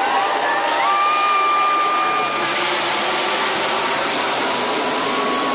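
A field of NASCAR stock cars racing past the grandstand: a loud, steady roar of many V8 engines together.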